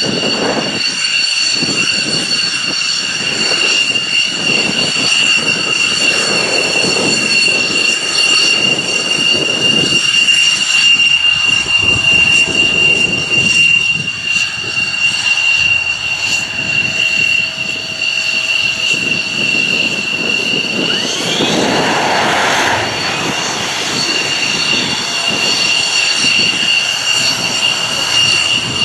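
Jet engines idling: a steady high whine over a rough rumbling hiss, with a brief louder rush about 22 seconds in.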